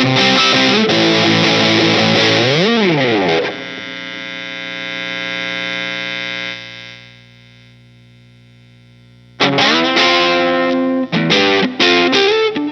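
Electric guitar played through a Boss DS-2 Turbo Distortion pedal: fast distorted riffing with a note bent up and back down, then a chord left ringing and fading away for several seconds before the riffing starts again.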